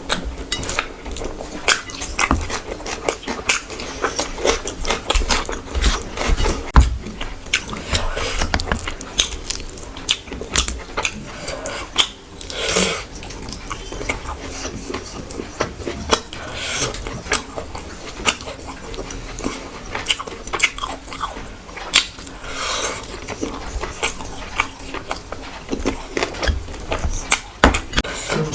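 Close-miked eating sounds: a person chewing and biting food, with many short, irregular mouth clicks.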